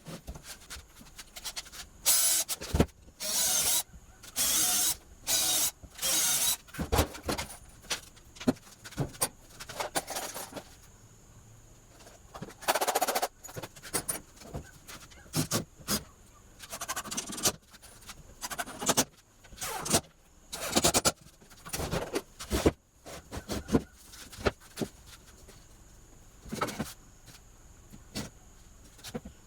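Workshop work on wood: irregular short bursts of noise, most under a second long, among clicks and knocks.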